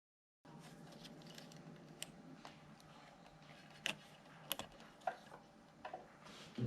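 Faint, scattered clicks and taps, about half a dozen, spread irregularly over quiet room tone: a USB cable's plug being handled and connected to a motor controller's connector.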